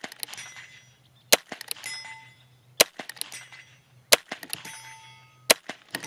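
Four shots from a Heritage Rough Rider .22 rimfire single-action revolver, about a second and a half apart. Each is followed shortly by a faint metallic ring, the steel target plate being hit downrange.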